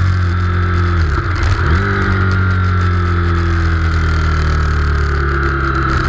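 Honda VTR1000SP1's 1000 cc V-twin engine running at speed. About a second in the revs dip sharply and climb back, then hold steady.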